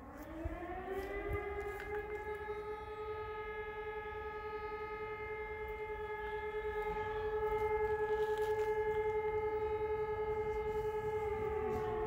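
Fire-brigade alarm siren winding up to a steady wail, holding one pitch, and starting to wind down near the end. This is one blast of the siren alarm calling out the volunteer firefighters.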